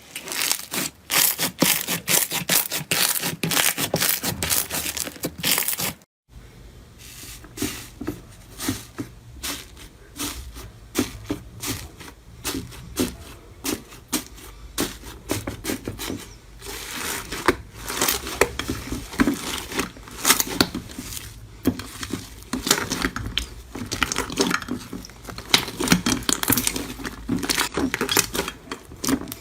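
Slime being squeezed, stretched and poked by hand, giving a dense run of crackling, popping clicks. About six seconds in it breaks off for a moment and starts again softer, with lower, fuller pops.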